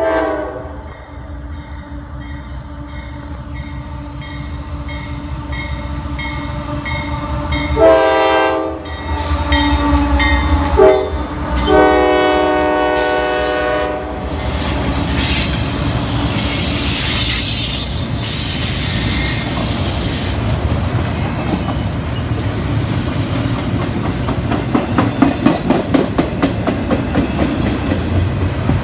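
CSX freight train led by GE AC4400CW diesel locomotives approaching and passing close by. The horn sounds long, long, short, long from about 8 to 14 seconds in, the grade-crossing signal, then the locomotives go by and the double-stack container cars follow with a steady rumble and rhythmic clickety-clack of wheels over the rail joints.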